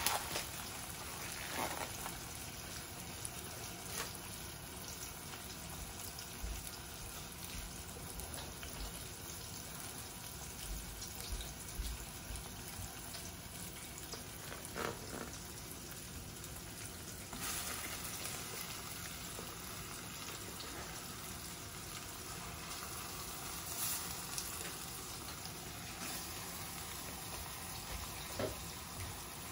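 Onions frying in oil in a stainless steel saucepan, a steady sizzle with scattered light knocks of utensils. About seventeen seconds in, the sizzle grows louder and brighter as ground pork goes into the hot pan.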